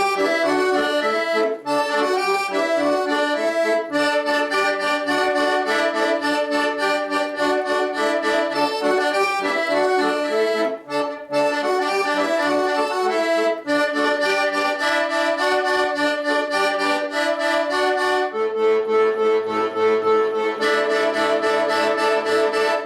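Accordion playing a lively piece through, its chords driven by bellows tremolo in fast repeated pulses, with a few short breaks between phrases. It ends on a long held chord for the last few seconds.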